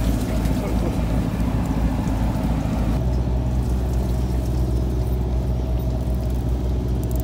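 Boat engine running steadily, a low hum under a hiss of water and wind. About three seconds in the hiss drops away and the hum settles to a steadier note.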